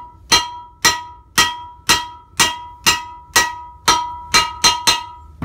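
Hammer striking the steel yoke of a Jeep Cherokee axle shaft about a dozen times, roughly two blows a second and quickening near the end, each blow ringing with a clear metallic tone. The blows are driving the U-joint bearing caps out of the yoke without a vise.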